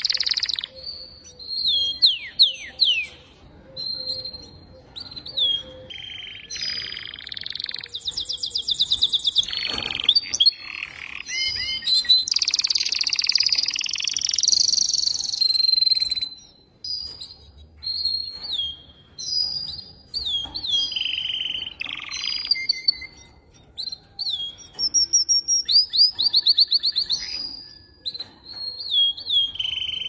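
Male canary singing: long phrases of fast trills, clear whistled notes and notes that slide down in pitch, separated by short pauses.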